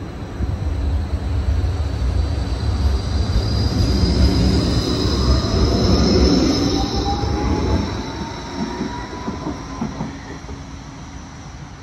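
G:link light-rail tram pulling away from the platform: a low rumble of wheels on rail with a high-pitched squeal over it, and a whine rising in pitch as it gathers speed. The sound builds over the first few seconds and fades from about eight seconds in as the tram moves off.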